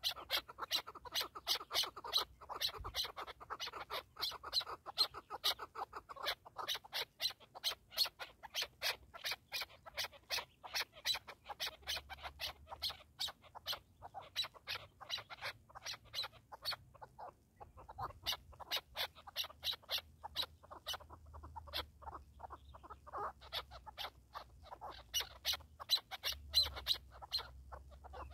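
Chukar partridges calling: a long, fast series of short clucking notes, about three to four a second, breaking off briefly about two-thirds of the way through before resuming.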